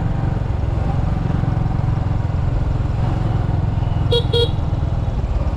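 Steady low rumble of riding in road traffic, with two short beeps of a vehicle horn about four seconds in.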